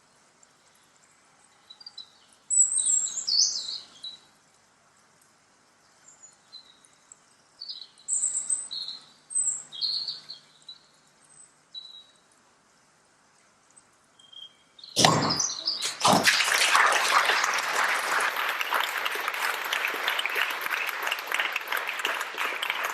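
Birds chirping in short high bursts. Then a sharp impact about two-thirds of the way through, followed by loud, dense, steady noise for the last several seconds.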